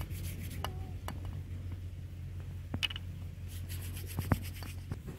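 Hands rubbing together and rolling a ball of flour dough bait, with scattered small clicks over a steady low hum.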